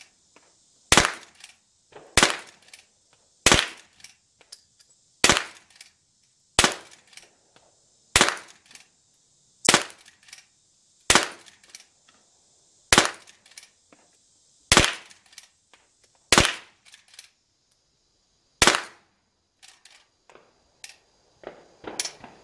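Henry lever-action .22 LR rifle firing about a dozen shots in steady succession, one every second and a half or so, with small clicks of the lever being worked between shots. Near the end the shots stop and only a few light clicks remain.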